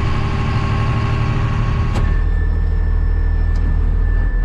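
Truck engine running as the truck is moved forward a short way. A sharp click comes about halfway through, after which the engine note changes.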